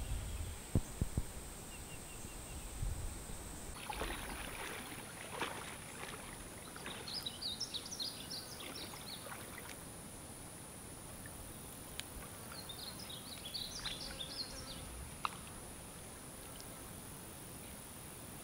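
Quiet riverbank ambience: a steady high-pitched insect drone that drops out briefly and returns about four seconds in, with two short runs of quick bird chirps about seven and thirteen seconds in. Faint rustles of footsteps in the grass.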